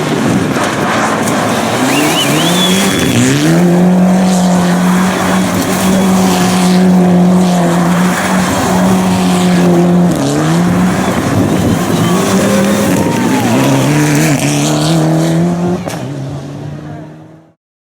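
Rally car engine at high revs, its note climbing, holding, dipping and climbing again, over tyre and road noise with a brief high squeal early on. The sound fades out near the end.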